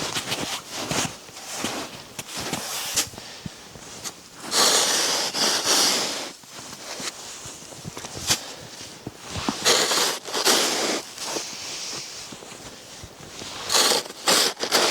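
Close rustling and crunching handling noises with scattered clicks, and three louder rustling bursts: about four and a half seconds in, about ten seconds in, and near the end.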